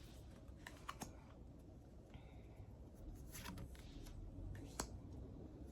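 Faint handling of tarot cards: a few soft clicks and rustles as cards are picked up and laid down, over a low steady room hum.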